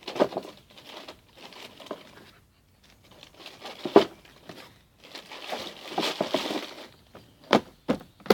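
Plastic bag rustling and crinkling as grooming brushes are packed into it inside a plastic box, with a sharp knock about four seconds in. Near the end, a few sharp clicks and knocks as the box lid is shut.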